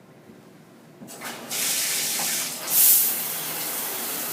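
A high-pressure Spa Fire Hydrant shower head spraying water on a low-pressure supply. It comes on about a second in with a rising rush, then settles into a steady loud hiss, briefly louder a little before three seconds in.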